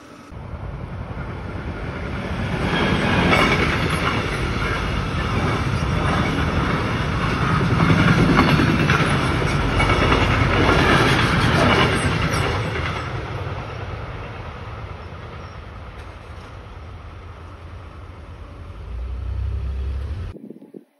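Freight train of covered wagons rolling across a level crossing, wheels clattering over the rails, loudest for the first half and then slowly fading. A low rumble swells near the end before the sound cuts off.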